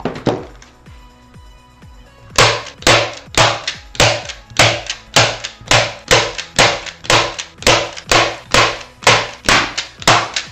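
Staple gun firing staples through carpet into a wooden base: one sharp snap at the start, then a steady run of sharp snaps, about two or three a second, from a couple of seconds in.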